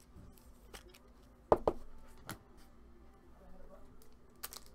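Trading cards being handled on a table: a few short, sharp taps and clicks, the loudest a quick pair about a second and a half in.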